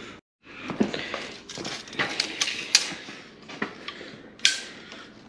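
Steel tape measure being pulled out and handled: scattered light clicks and metallic clatter after a brief break of silence, with a sharper rattle about four and a half seconds in.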